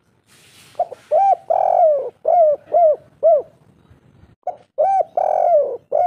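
Spotted dove cooing: two song phrases, each a short note, a coo, a long drawn coo, then three short clipped coos, the 'kuk 3' three-note ending. A brief rustle comes just before the first phrase.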